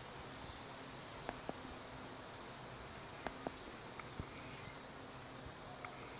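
Quiet outdoor ambience: a steady hiss of insects and air, with a few faint high bird chirps and several scattered sharp ticks.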